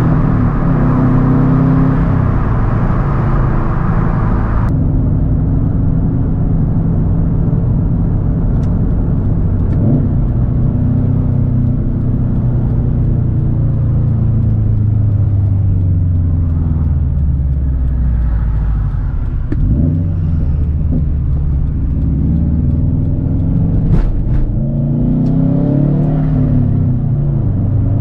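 2013 Subaru WRX STI's turbocharged 2.5-litre flat-four running loud through a Tomei Expreme Ti titanium turboback exhaust while driving, its pitch rising and falling with the revs: a long slow fall through the middle, then climbing again near the end.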